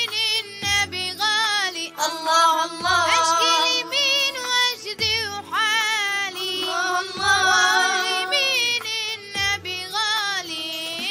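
Islamic nashid sung by a boy's voice: a drawn-out, wavering melodic line with no clear words, over a backing track with a low drum beat about every two seconds.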